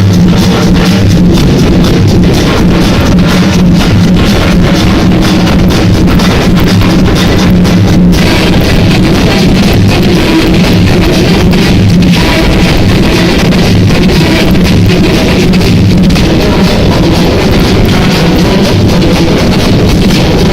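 Loud music with drums, guitar and a heavy repeating bass line, played through a sonidero sound system.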